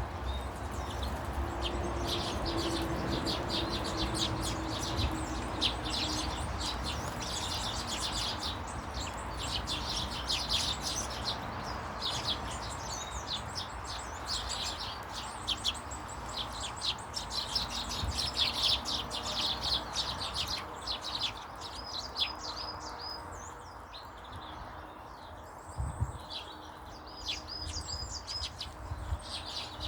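Small garden birds chirping and twittering, many short high calls overlapping, with a few runs of quick repeated notes in the second half, over a steady low background noise.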